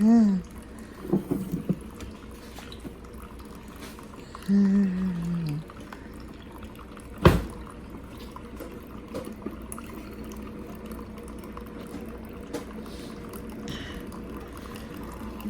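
Keurig single-serve coffee maker brewing, a steady stream of hot coffee pouring into the cup. A single sharp click comes about seven seconds in.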